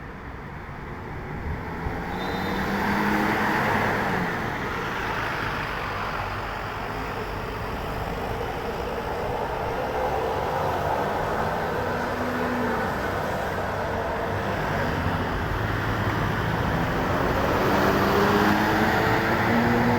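Road traffic passing close by, with heavy-vehicle engines and tyre noise. It swells about three seconds in and builds again near the end.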